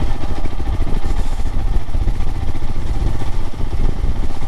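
Royal Enfield Himalayan motorcycle's single-cylinder engine running steadily while being ridden.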